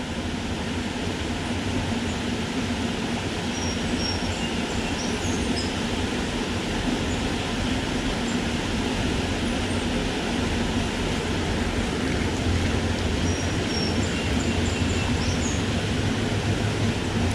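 Steady rushing of water at a river falls, an even noise with a low rumble under it.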